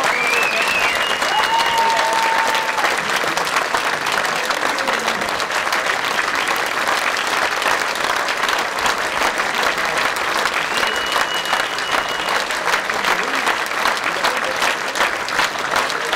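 Concert audience applauding steadily, with a few held cheers rising above the clapping near the start and again about two thirds of the way through.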